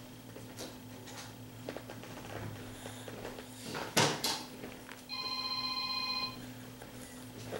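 A sharp knock about four seconds in, then a steady electronic ringing tone held for about a second, like a phone ringing. Faint small clicks in between.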